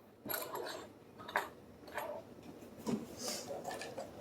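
Light metal clicks and clinks, about five scattered through, from heavy round-body Schlage padlocks being handled.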